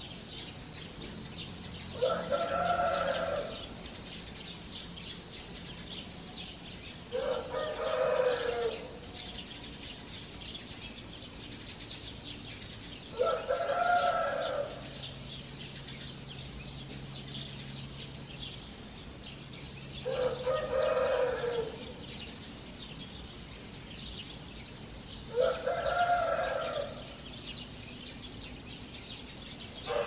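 A rooster crowing five times, each crow about a second and a half long and coming every five to six seconds, over a steady dawn chorus of small birds chirping.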